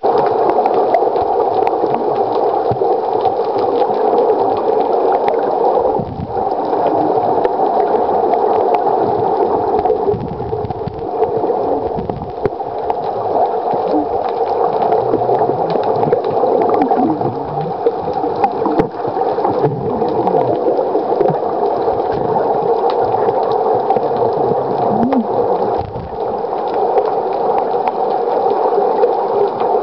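Underwater noise picked up by a waterproof compact camera held beneath the surface: a steady, dense, muffled hum with gurgling water.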